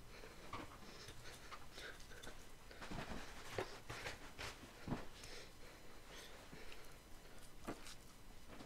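Faint, irregular scrapes and soft taps of a large butcher knife trimming raw top sirloin on a cutting board.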